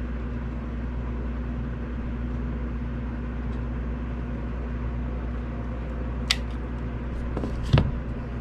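Steady low electrical or mechanical hum, like a fan or motor running in a small room. A sharp click comes about six seconds in, and a louder knock near the end.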